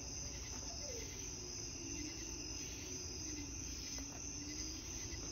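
Crickets chirring in a steady high-pitched night chorus, with a faint low hum that dips and rises in pitch in the middle.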